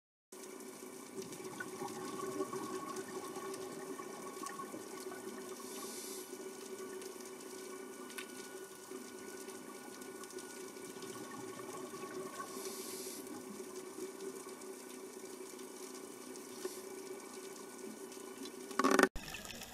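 Underwater ambience heard through a dive camera: a steady watery hiss with a faint hum, and about 6 and 13 seconds in two short hissing bursts of scuba exhaust bubbles. A louder rush comes near the end.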